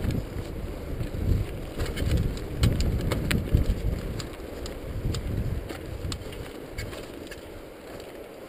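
Mountain bike riding down a rough dirt trail: wind buffets the camera microphone as a heavy rumble, with a scatter of sharp clicks and rattles from the bike jolting over roots and stones. The rumble eases about halfway through as the bike slows.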